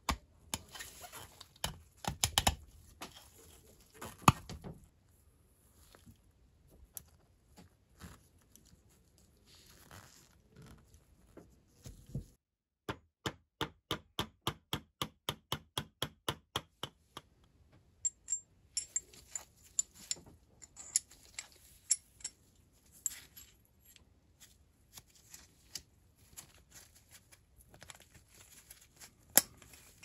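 A small hammer tapping a pin through the coffee grinder's metal body into its wooden base: a steady run of sharp taps, about four a second, lasting about four seconds midway through. Before and after it, scattered knocks and clicks of the metal body, wooden base and grinding parts being handled and fitted together.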